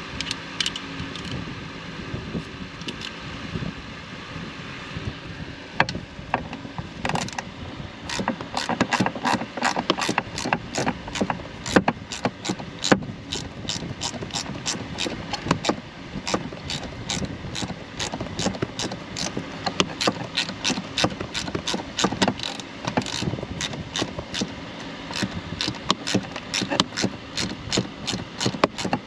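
Hand ratchet with an extension clicking as a screw is run down, a long even stream of quick clicks from about seven seconds in, with a few scattered clicks before.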